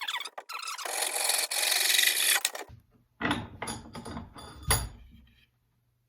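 A tool scraping and cutting across wood in one continuous rasping stroke of about two seconds, as glued wood at the axe handle's eye is trimmed. Then a quick series of knocks and clatters.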